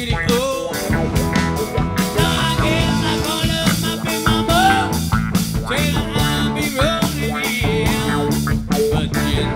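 Live rock band playing a steady groove on electric guitars, electric bass and drum kit, with a melodic line that bends in pitch.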